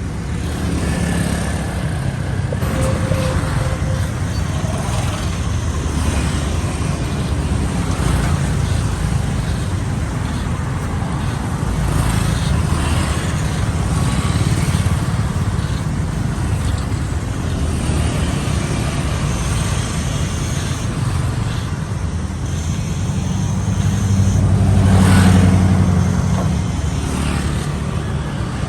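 City street traffic: engines running and vehicles passing in a steady rumble, with one vehicle passing close and loudest about 25 seconds in.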